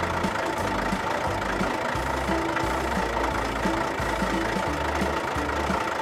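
Engine sound effect for a toy tractor, running steadily at idle.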